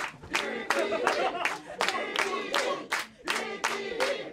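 Small audience clapping along in rhythm to wrestling entrance music with a sung vocal, the claps landing in a fast steady beat.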